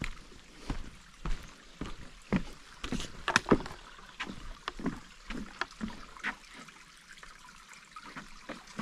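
Footsteps of a hiker walking across a wooden footbridge, boots knocking on the planks at a steady walking pace, with a louder cluster of knocks about three seconds in.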